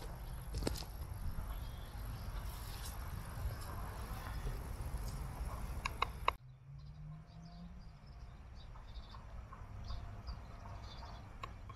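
Outdoor ambience: a steady low rumble with a few light clicks. About six seconds in it drops abruptly to a quieter background with faint high chirps.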